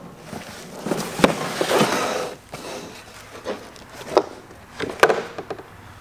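Cardboard packaging rustling as a plastic tool carrying case is slid out onto a wooden workbench. Then come a few sharp clicks as the case's latches are snapped open and the lid is lifted.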